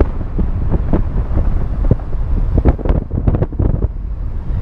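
Wind buffeting the microphone: a loud, steady low rumble, broken by scattered short knocks.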